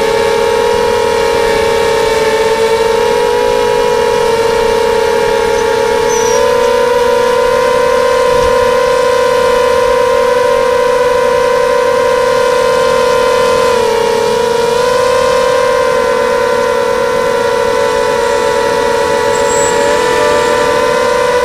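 Lumenier QAV250 racing quadcopter's brushless motors and propellers whining steadily, heard from a camera on the quad itself. The pitch shifts a little with throttle, dipping and rising again about two thirds of the way through.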